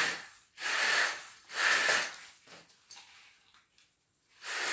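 Curtains being pulled and taken down: three rustling swishes about a second apart, each under a second long.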